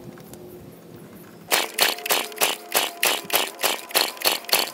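Toro mower's Suzuki GTS two-stroke engine catching about a second and a half in and running rough, firing in slow, even pops about four or five a second.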